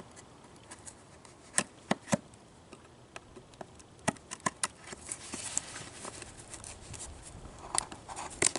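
A boxed stainless steel pot being unpacked by hand: scattered sharp clicks and taps from the packaging, with a stretch of crinkling a little past the middle.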